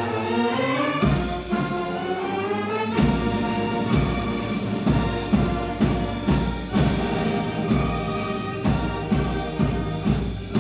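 Brass band playing an overture: brass and woodwind lines over regular bass-drum and timpani strokes, a little under two a second from about three seconds in.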